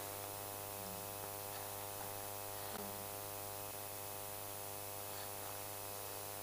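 Steady electrical mains hum and buzz, many even tones stacked together, over a steady hiss, with nothing else standing out.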